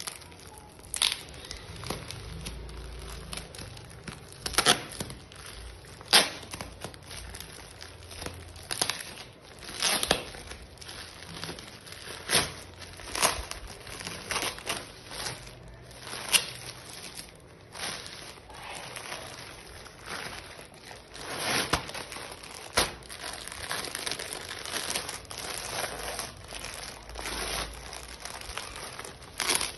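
A plastic courier mailer wrapped in packing tape being torn open by hand: continuous crinkling of plastic film with irregular sharp rips and crackles.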